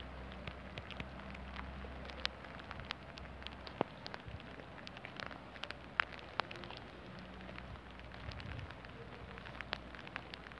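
Rain falling steadily, with many separate drops ticking and dripping irregularly on hard surfaces.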